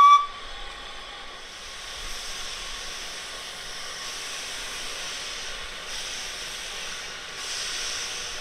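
Narrow-gauge steam locomotive standing with steam blowing off in a steady hiss, which grows a little stronger near the end. A brief high whistle toot sounds right at the start.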